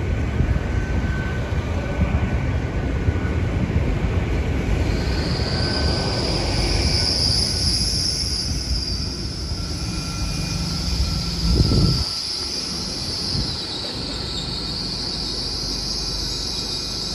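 GWR Class 802 train running into the platform and braking, its brakes squealing with a high, wavering squeal from about five seconds in over the train's low rumble. The rumble swells briefly and drops away about twelve seconds in, while the squeal carries on.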